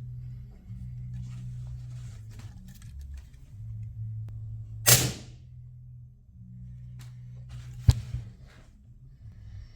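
A Hubin GK1 .25 air pistol area: one short, sharp burst with a brief hissing tail about five seconds in, then a single sharp click near eight seconds, over a steady low hum.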